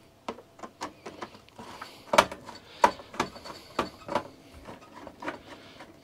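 Screwdriver driving screws into the plastic engine cover of a Briggs & Stratton 625-series mower engine: irregular clicks and knocks of tool, screws and plastic, the loudest a little over two seconds in.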